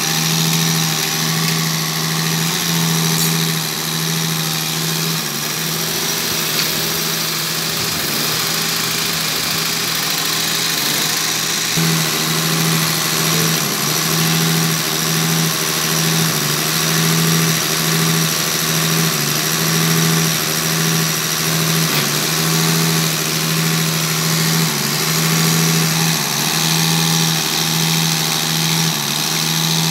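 Diesel injection pump test bench running a six-cylinder Mercedes in-line injection pump during calibration: a steady machine hum with an even pulsing drone and a high hiss. The drone briefly dips about twelve seconds in.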